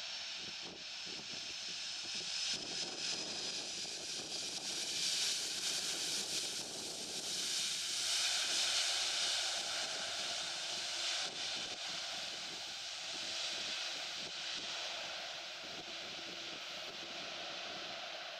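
Boeing 747-400F freighter's four jet engines on a landing pass, the engine noise swelling to a peak about halfway through and then fading, with a high turbine whine in the first few seconds.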